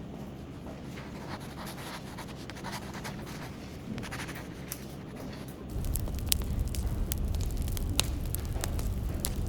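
Wood fire crackling: soft scratching and rustling at first, then about halfway through it grows louder, with a low rumble of flames under frequent sharp pops.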